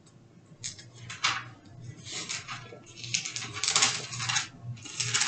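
Thin Bible pages being leafed through, in several crisp paper rustles with short pauses between them.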